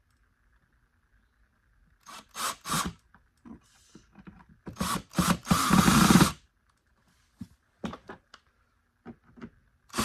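A screw being driven into the plastic housing of a Bissell Powerforce vacuum. It goes in a few short strokes, then a longer, loudest turn about five to six seconds in, followed by scattered light clicks of tool and plastic.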